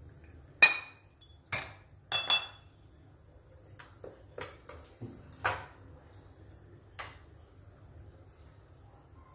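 Kitchen dishes and utensils clinking: four sharp clinks with a brief ring in the first two and a half seconds, then a scatter of lighter taps.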